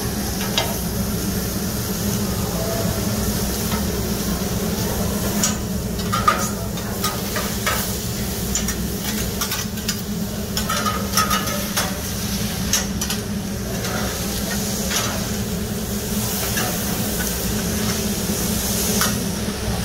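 Meat, vegetables and shrimp sizzling on a large steel flat-top Mongolian barbecue griddle. Metal spatulas scrape and clink against the griddle in short, irregular strokes over a low steady hum.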